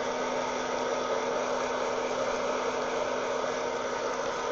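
Wear-Ever Popcorn Pumper hot-air popper running steadily, its fan blowing hot air through the roasting coffee beans with a constant low hum. This is late in the roast, as second crack begins.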